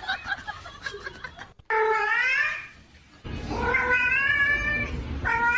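A domestic cat meowing in three long, drawn-out yowls, each rising in pitch.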